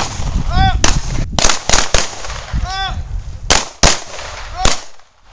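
Handguns firing on a shooting range: about eight sharp shots at uneven intervals from several shooters, some in quick pairs.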